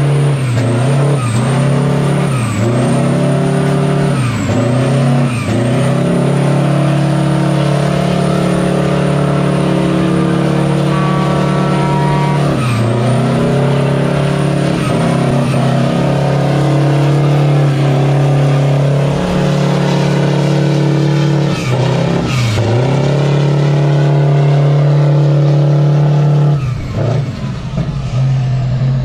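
Heavy truck's diesel engine held at high revs during a burnout with the rear tyres spinning in smoke. The revs dip briefly and pick back up again and again, then ease off near the end.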